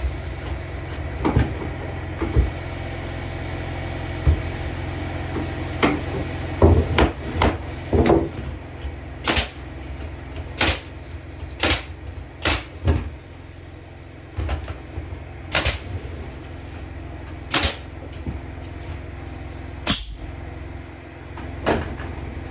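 A series of sharp wooden-sounding knocks and taps, coming about once a second through the middle stretch, over a steady low hum.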